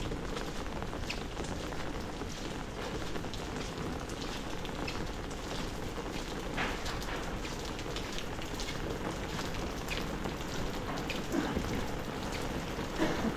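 Heavy rain falling steadily, a dense even hiss of drops with a few sharper hits standing out around the middle and near the end.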